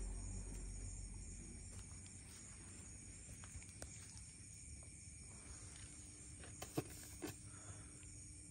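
Quiet night background with a steady high insect chirring, and two sharp clicks a little over half a second apart near the end.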